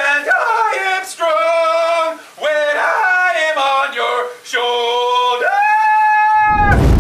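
A man singing loudly in phrases of held, bending notes, ending on one long held high note. Electronic dance music with a heavy bass comes in just before the end.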